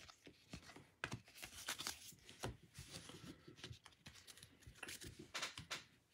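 Baseball trading cards being flipped one by one through the hands and set down, a run of faint, irregular ticks and soft slides of card on card.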